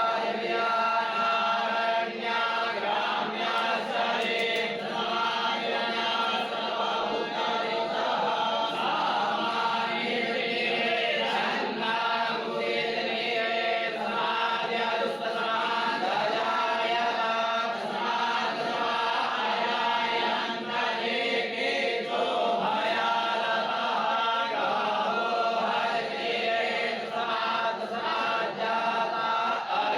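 Several voices chanting together in unison, a steady devotional chant that rises and falls in phrases every couple of seconds.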